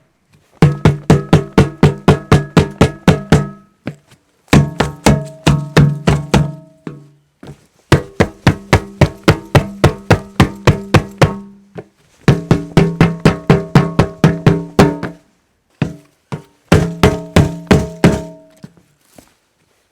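Rapid repeated strikes on a hollow object, each hit ringing with a low, resonant tone. They come in five runs of about three seconds each, several hits a second, with short pauses between runs.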